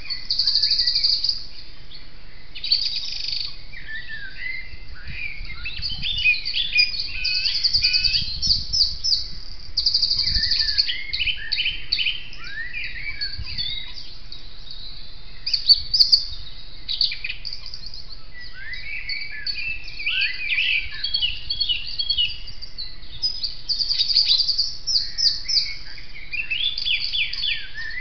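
Dawn chorus of several songbirds singing at once. Fast, high repeated trills recur every few seconds over lower, varied warbling phrases.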